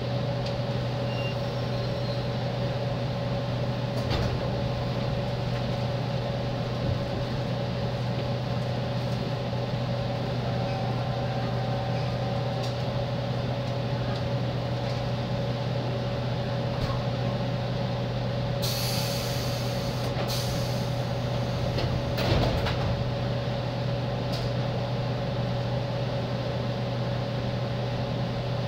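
Inside a JR East 205 series electric train: a steady low hum from the car with a constant mid-pitched tone, broken about two-thirds through by a two-second hiss of released compressed air and a single knock soon after.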